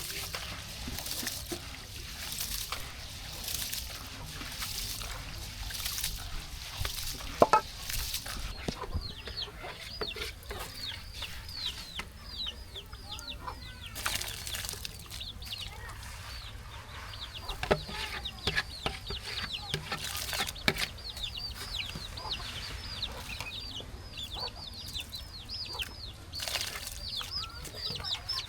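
Chickens peeping: from about eight seconds in, a quick, steady run of short, high calls, each falling in pitch. Before that comes a regular swishing noise, with one sharp knock just before the peeping starts.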